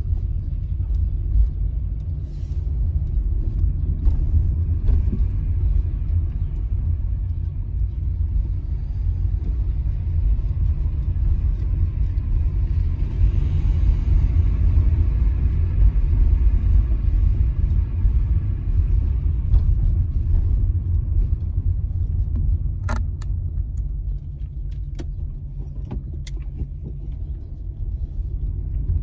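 Low, steady rumble of a car being driven, engine and tyre noise heard from the car, with a few sharp clicks about three-quarters of the way through.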